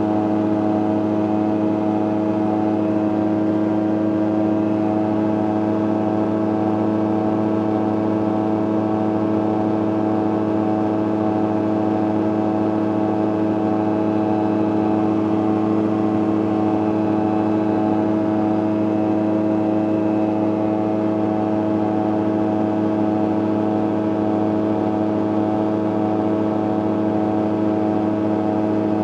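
CGS Hawk ultralight's engine and pusher propeller running at steady cruise power, heard from the cockpit as a constant drone holding one even pitch throughout.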